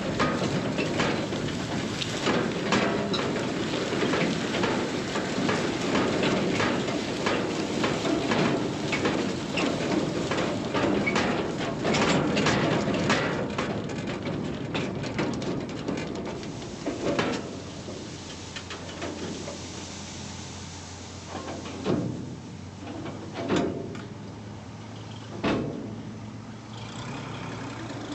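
Harvest machinery clattering, a dense rapid rattle that thins out after about sixteen seconds, leaving a steady low hum and a few separate knocks.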